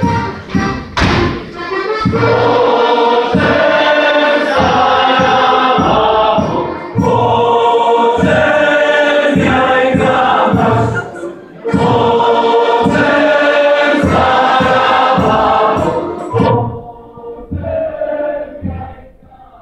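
Polish folk ensemble performing live: a choir of voices singing over violins, with a steady low thumping beat. The music breaks off about three-quarters of the way through.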